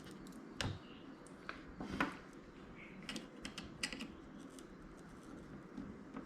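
Light, irregular clicks and taps of a small precision screwdriver and tiny screws against the opened iPhone 6S, about one or two a second, as screws are taken out.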